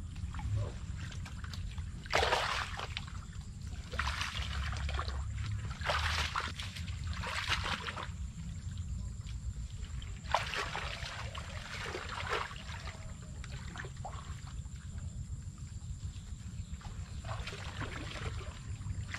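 Shallow pond water splashing and sloshing in irregular bursts a few seconds apart as a person wades through it and works a woven basket through the water by hand.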